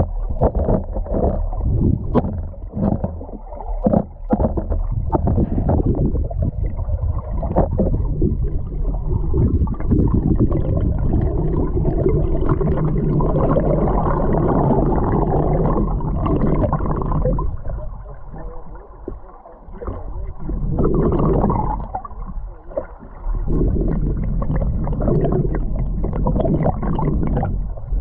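Muffled rushing and gurgling of river current heard underwater through a submerged camera's housing, with scattered clicks and knocks in the first few seconds, then a steadier rush that dips twice near the end.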